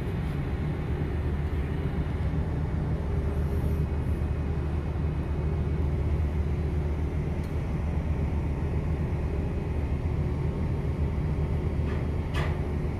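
Steady low drone of a ship's machinery heard from the open deck, with a brief noise near the end.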